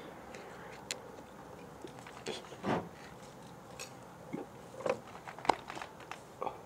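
Scattered small clicks and crackles, with a few short, louder pops in the second half, from a plastic gravity-bong bottle being gripped and inhaled from with the mouth on its top.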